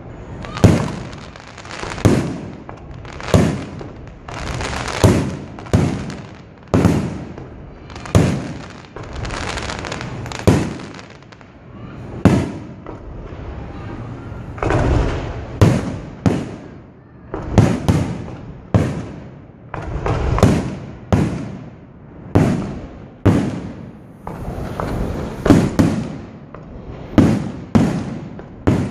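Fireworks display: aerial shells bursting one after another, a sharp bang every second or so, each trailing off briefly before the next.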